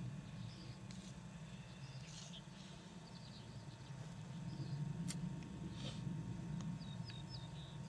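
Birds chirping faintly with short, scattered high notes, a quick run of hooked notes near the end, over a steady low rumble.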